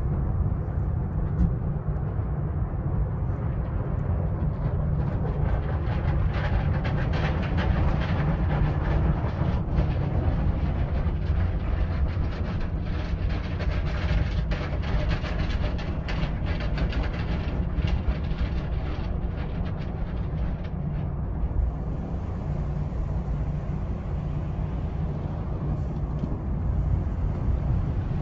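Automatic tunnel car wash heard from inside the car: a steady rumble of machinery and spraying water, with the cloth wash strips slapping and rattling against the body and glass, busiest from about six to twenty seconds in.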